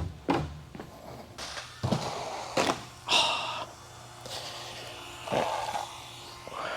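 Associated RC10B6.4 radio-controlled buggy driving on the track: tyres rushing over the surface with irregular knocks and clatters as it bumps through the course.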